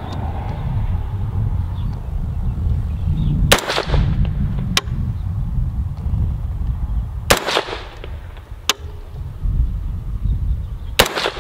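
Three single shots from a Bear Creek Arsenal BC-15 AR-15 rifle with a VG6 Gamma muzzle brake, firing 55-grain ammunition, spaced about four seconds apart while it is being zeroed. Each shot is followed about a second later by a fainter sharp crack.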